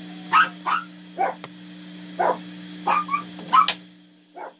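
A dog barking in a string of short, irregular barks over a steady low hum.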